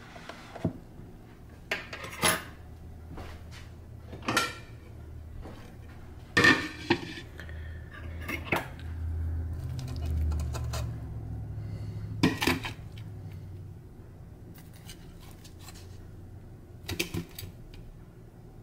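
A metal fork clinking and scraping against an air fryer basket and its grate while chicken leg quarters are turned over, in scattered sharp clinks and knocks. A low rumble runs through the middle stretch.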